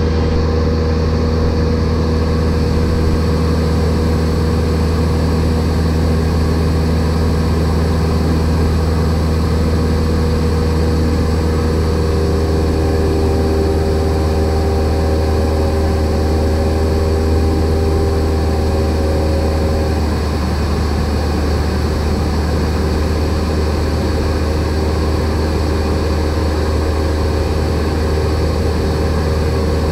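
Light training aircraft's piston engine and propeller heard from inside the cockpit: a loud, steady drone while the plane climbs.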